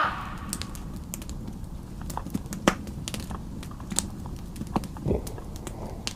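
A low, steady rumble with scattered sharp clicks and crackles, one of them louder about two and a half seconds in.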